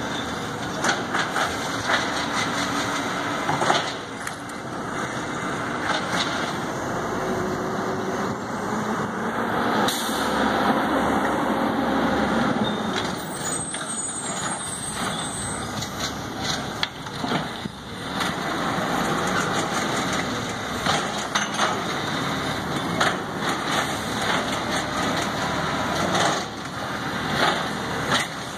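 Garbage truck's diesel engine running as it moves along the street emptying carts, with a pitched whine that rises and falls between about six and thirteen seconds in, and repeated knocks and clanks throughout.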